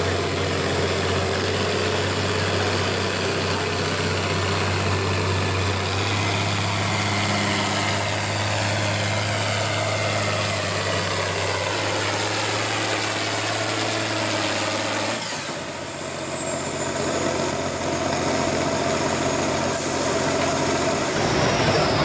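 Farm tractor's diesel engine running steadily under load while pulling a sled, with an even, unchanging pitch. The sound changes abruptly about two-thirds of the way through.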